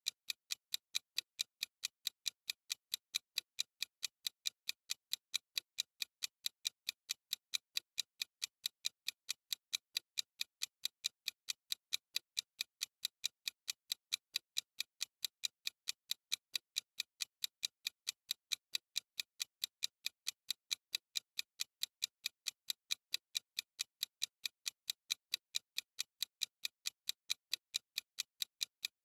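Clock-style ticking sound effect of a countdown timer: crisp, high clicks at a fast, perfectly even rate.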